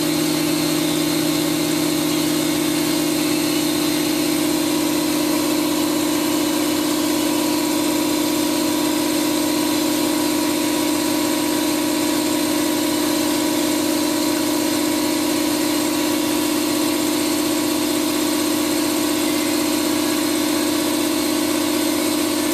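1999 Chiron FZ18L CNC vertical mill powered up and traversing its Y axis slowly, unhomed: a steady, even machine hum with several held tones, unchanging throughout.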